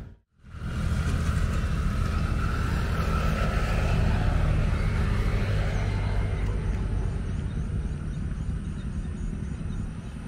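Motor vehicle traffic: a steady low engine hum, after a brief silent gap at the very start.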